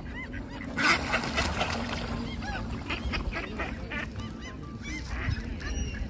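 Gulls and geese calling over and over, short arched honks and cries overlapping one another, with a brief louder rush of noise about a second in.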